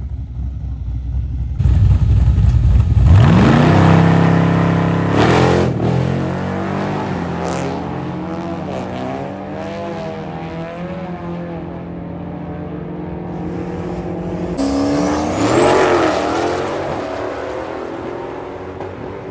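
Drag racing car idling, then launching hard from the line about a second and a half in, its engine climbing in pitch through a gear change and fading away down the strip. A second loud engine run rises near the end.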